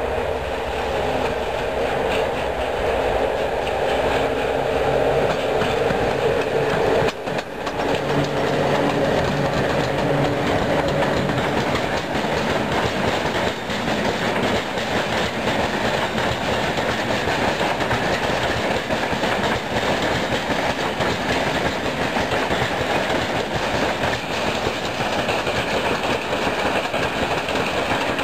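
Electric locomotive passing at the head of a freight train of open wagons: a steady hum from the locomotive in the first few seconds, then the continuous rumble and clickety-clack of the wagons' wheels over the rail joints.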